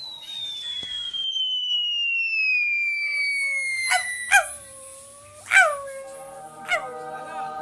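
Cartoon-style sound effects: a long whistle falling steadily in pitch for about three seconds, then four sharp pings about a second apart, each dropping quickly in pitch. From about six seconds in, several held tones sound together.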